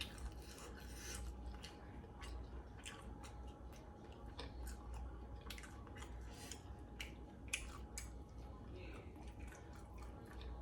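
Faint, irregular small clicks, snips and rubs of someone eating sauced chicken wings, biting and chewing close to the microphone, over a low steady hum.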